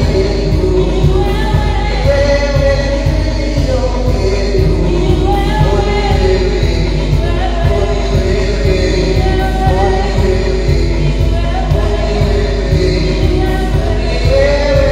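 Church praise-and-worship song: voices singing a melody over a band with a quick, steady beat.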